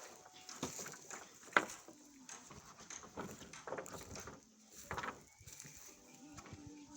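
A series of irregular knocks and thuds, the sharpest about one and a half seconds in and another cluster near five seconds, typical of timber being handled and struck during roof framing.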